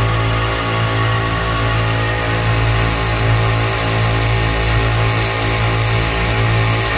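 Oil-free direct-drive twin-motor air compressor running with a steady hum, building pressure in its tank.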